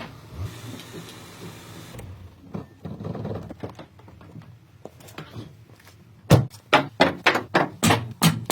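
Light clatter of work, then from about six seconds in a fast series of sharp metal knocks, about four a second: hammer blows on a drum brake that is seized and very stuck.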